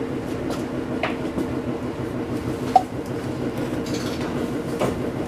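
Train running, heard from inside the front of the car: a steady rumble with a held hum, and a few sharp clicks from the wheels and track, the loudest a little under three seconds in.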